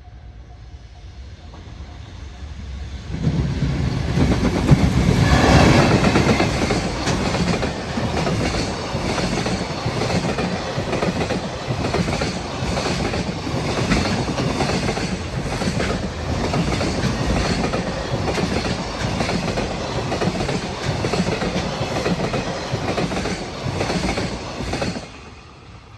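EF210 electric locomotive hauling a container freight train passing close by. The train swells in about three seconds in and is loudest as the locomotive goes past, then comes a long, steady run of wagon wheels clacking over the rail joints in an even rhythm. The sound falls away suddenly as the last wagon clears, near the end.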